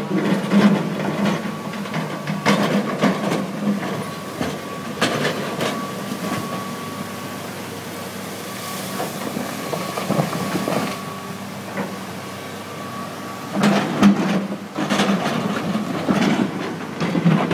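John Deere 200C LC hydraulic excavator running, a steady diesel hum with a held whine, and scattered knocks and clatter as it works moving rock in a river bed. The muddy flood water of the river rushes underneath.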